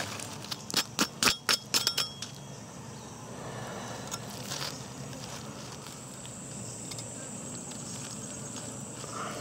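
Jungle insects buzzing steadily, with a steady high insect note coming in about halfway through. Near the start, a quick run of about eight sharp clicks and knocks is the loudest sound.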